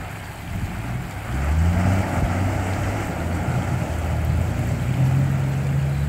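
Nissan four-wheel-drive engine revving up just over a second in, then pulling steadily, with river water splashing around the vehicle as it moves through the crossing.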